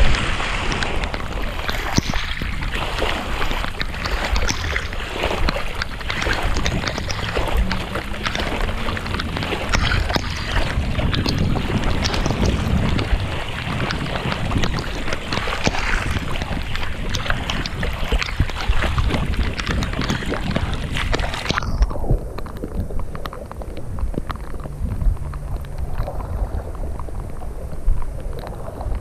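Storm wind buffeting the microphone over heavy rain and splashing floodwater, full of crackles and splashes. About 22 seconds in, the sound turns abruptly muffled, as if the microphone were covered or wet.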